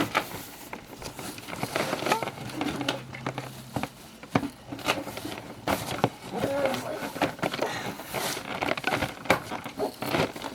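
Cardboard and plastic toy packaging rustling, crinkling and clicking irregularly as a large boxed action figure is worked out of its tray.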